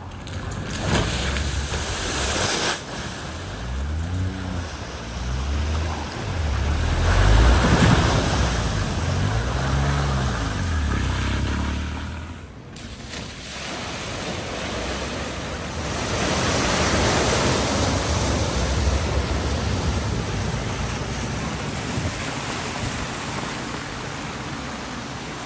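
A car driving through deep floodwater at a ford: a steady rush of water spraying and washing, with the engine's pitch rising and falling a few seconds in and again around ten seconds in. The sound drops out briefly about halfway and the water rush carries on.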